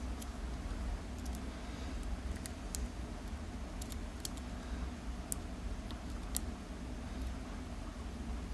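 Lock pick working the pin stack of a Euro cylinder lock, giving scattered faint metallic clicks at irregular intervals, with the core held in a false set.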